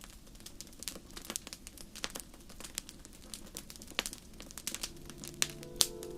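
Wood fire crackling, with irregular sharp pops and snaps from burning logs over a low hiss. Soft music with held tones fades in near the end.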